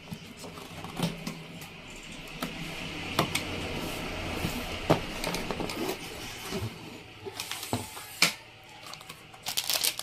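Cutter blade slitting the seal on a cardboard motherboard box, with scattered taps and scrapes as the box is handled and opened. Packaging starts crinkling near the end.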